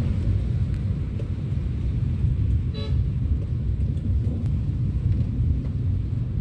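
Steady low rumble of road traffic, with one short vehicle horn toot about three seconds in.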